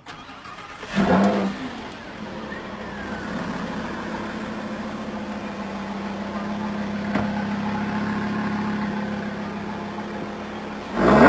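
Lamborghini Huracán LP610-4's 5.2-litre V10 starting with a loud flare about a second in, then running steadily at idle. A second loud burst of engine sound near the end.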